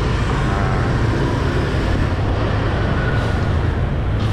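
Steady low motorbike engine drone with road and traffic noise.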